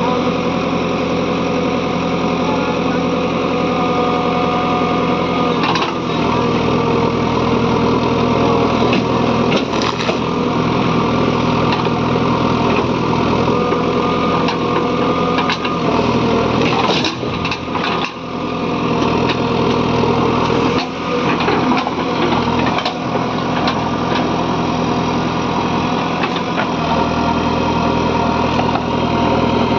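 JCB 3DX backhoe loader's diesel engine running steadily while the machine works, with scattered knocks and clanks; about halfway through a cluster of knocks comes as the engine note briefly dips.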